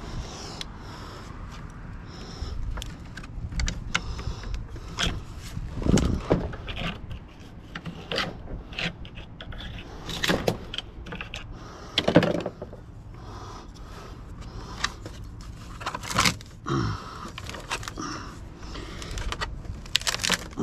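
Screwdriver prying and scraping at a transformer's copper windings and paper insulation, with irregular metal clicks and rubbing and a few louder knocks as the coils are worked apart by hand.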